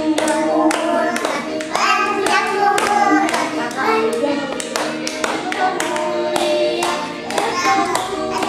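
A family singing a birthday song together, children's voices among them, keeping time with hand claps about twice a second.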